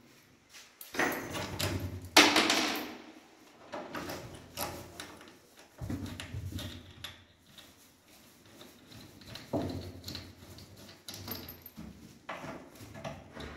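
Knocks and scrapes from a white wooden vanity cabinet being handled and shifted into place, a string of separate bumps with the loudest about two seconds in.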